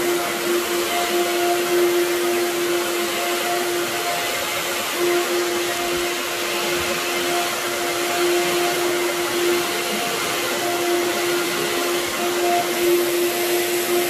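Anway Clear Trak (Workhorse) upright vacuum cleaner running steadily as it is pushed back and forth over carpet, a constant rush of air with a steady motor hum.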